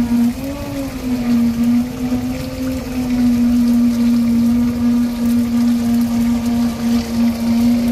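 A steady machine hum holding one low pitch, wavering slightly in the first second or so, over a low rumbling noise.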